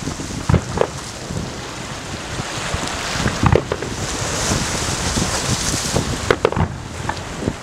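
Fireworks display heard across water: a series of muffled booms from bursting aerial shells, a couple near the start, one about three and a half seconds in and a quick cluster about six seconds in, over steady wind noise on the microphone.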